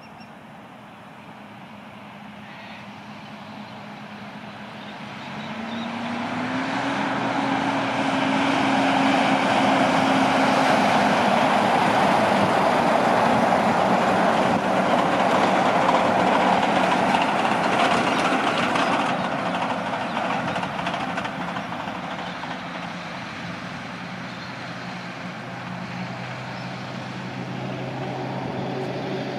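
Heavy truck driving past: its engine climbs in pitch as it comes on, then engine and tyre noise swell to a loud peak and slowly fade, leaving a steady lower engine drone near the end.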